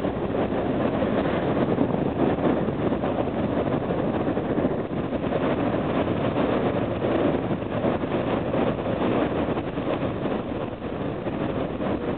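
Steady running noise of a ferry under way at sea, heard from the open deck: wind on the microphone over the ship's rumble, unchanging throughout.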